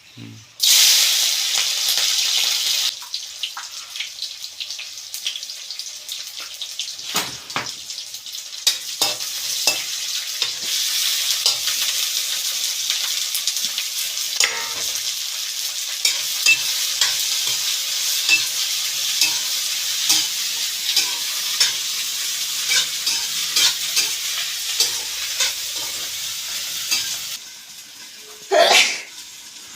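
Electric welding arc: a steady crackling hiss with many small sharp pops, starting abruptly and cutting off suddenly after about 27 seconds, as a long weld is run. A few loud knocks follow near the end.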